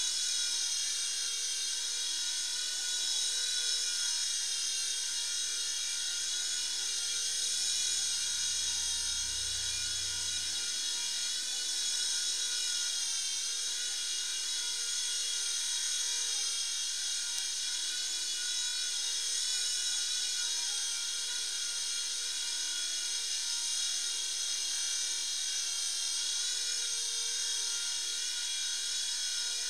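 Small toy RC helicopter in flight: its electric motor and rotors give a steady high-pitched whine and buzz, dipping slightly in pitch partway through.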